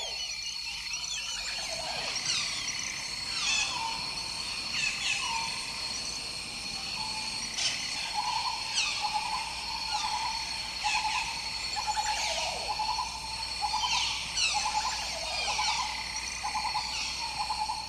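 Tropical jungle ambience: a steady high insect drone under repeated falling whistled bird calls. From about eight seconds in, a rapid pulsing call joins at a lower pitch and repeats every second or so.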